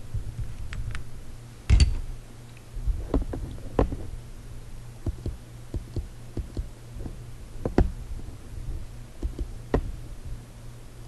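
Computer keyboard keys and mouse buttons clicking irregularly as a text label is typed. A louder knock comes about two seconds in. A steady low hum runs underneath.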